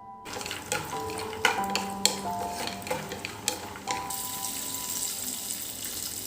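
Kitchen clatter with a series of sharp knocks and clicks of items being handled on the counter. About four seconds in, a steady hiss of running tap water takes over, with soft piano music underneath.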